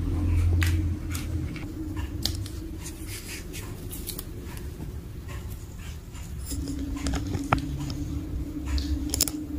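Kittens playing with toys on a tiled floor: scattered light taps and clicks, over a steady low hum.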